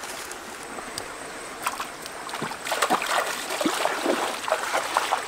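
Steady rush of a shallow stream. About halfway in, a person's feet start splashing through the water in a quick, irregular run of splashes.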